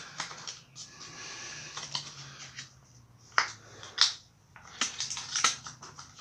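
Homemade plastic fork-seal cleaning tool, cut from a pop bottle, scraping against the fork tube and seal as it is pushed up under a leaking fork seal to clear out dirt. A soft rustling scrape, then several sharp clicks.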